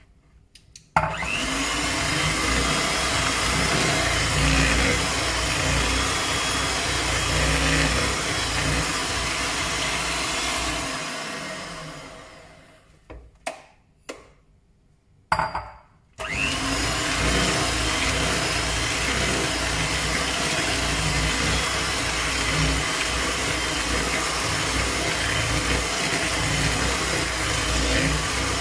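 Kenwood electric hand mixer running, its beaters creaming butter and brown sugar in a plastic bowl. It winds down about eleven seconds in, a few knocks and clicks follow while it is off, and it starts up again about sixteen seconds in.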